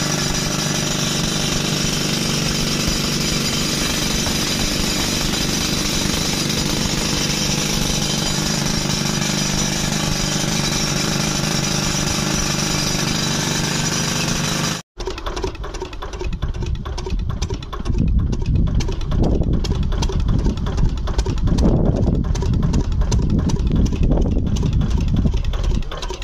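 Well-digging rock drilling machinery running loud and steady, cutting off abruptly about halfway through. After that comes a lower, uneven rumble.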